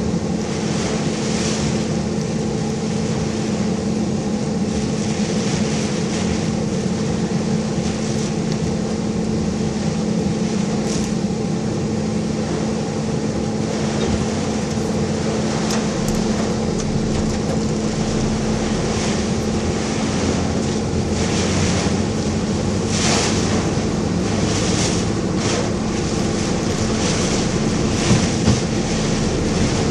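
A car driving through a typhoon, heard from inside: a steady engine and road drone under storm wind and rain that surge and ease against the body. Two sharp knocks come a little before the end.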